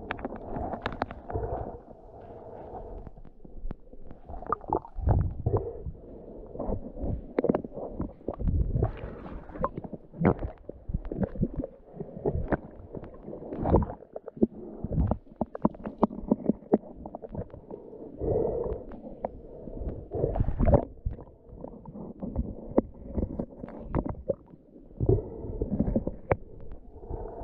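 Muffled underwater sound picked up by a submerged camera: water moving and gurgling, with many irregular small knocks and low thumps.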